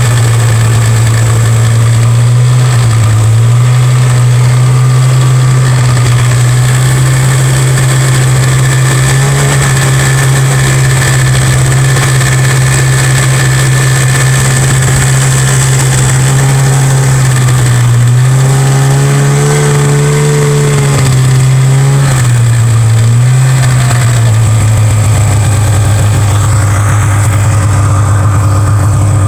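Polaris Indy two-stroke snowmobile engine running under steady throttle while towing a snowboarder, its pitch dipping briefly a few times. About two-thirds through it revs up and eases back down.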